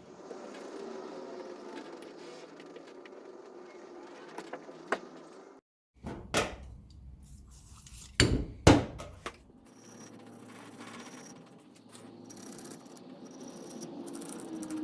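Metal tools and engine parts clinking and knocking on a workbench, with a few sharp knocks between about six and nine seconds in.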